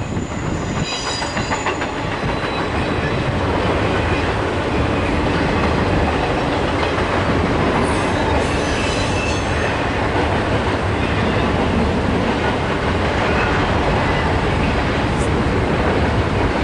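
Norfolk Southern intermodal freight train's container well cars rolling past: a steady, loud rumble and clatter of steel wheels on rail, with brief high squeals about a second in and again around eight seconds.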